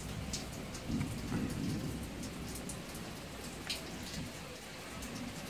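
Steady rain falling, with scattered sharp ticks of single drops, and a low rumble of thunder about a second in.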